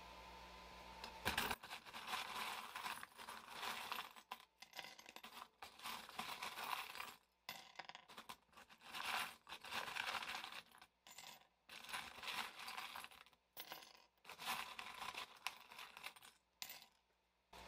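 Small metal charms and stones being stirred and rummaged by hand in a wooden box, a jingling clatter that comes in irregular handfuls with short pauses, as the charms are mixed before being cast. It starts about a second in.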